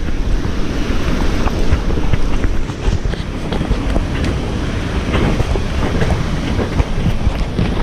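Tropical cyclone wind blowing hard against the house as a continuous low rumble, with many small taps and splashes of rain and water coming in through a hole in the roof.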